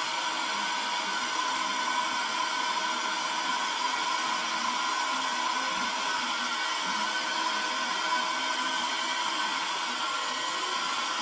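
Handheld vacuum cleaner running steadily, a constant motor whine over the rush of air.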